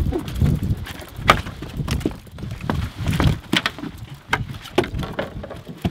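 A freshly landed speckled trout flopping on a boat deck: irregular slaps and thumps of the fish hitting the deck.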